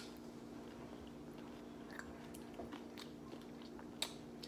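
Faint chewing and biting of fried fish tacos: soft wet mouth clicks, with a sharper click about two seconds in and another about four seconds in.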